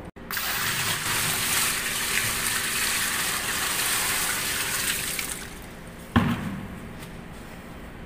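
Water pouring in a heavy stream into the tub of a top-loading washing machine, filling it for a test run. The pour stops after about five seconds, and about a second later there is one sharp knock.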